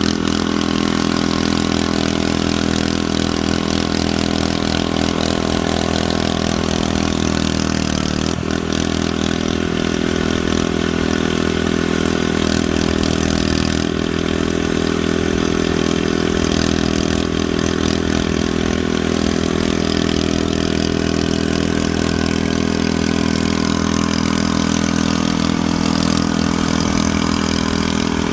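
A steady mechanical drone with a constant pitch, like an engine idling, with one brief knock about eight seconds in.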